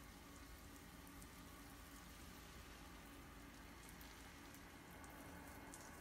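Faint, steady hiss and patter of an oscillating lawn sprinkler's spray falling on the lawn.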